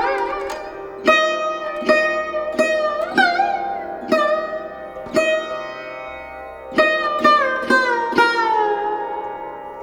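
Instrumental music: a plucked string instrument plays slow single notes over a held drone, several notes bent upward in pitch, with a quick run of notes after a pause and a long note sliding down near the end.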